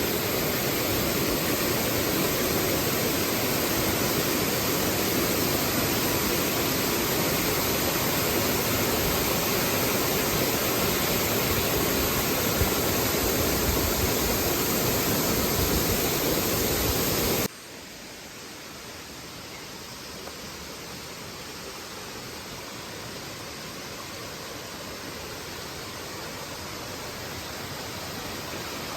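Waterfall with water rushing in a steady, loud hiss. About two-thirds of the way through it cuts abruptly to a much softer rush that slowly grows louder.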